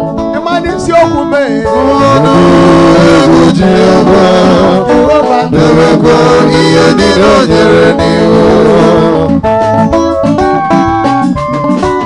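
Praise music: singing to a live band's instruments, with sustained chords underneath. It grows fuller and louder about two seconds in and thins out a few seconds before the end.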